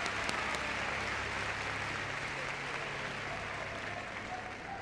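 Audience applauding, the applause slowly dying away.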